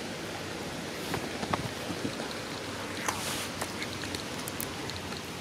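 Steady outdoor background hiss with a few faint clicks and a short louder burst of noise about three seconds in.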